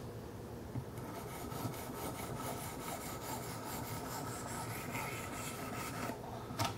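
800-grit diamond stones of a Wicked Edge sharpener rubbing along the 14C28N steel blade of a Kershaw Skyline in quick repeated strokes: the finishing passes at 800 grit. The sound is a light, steady scratchy rub, with a small tap near the end.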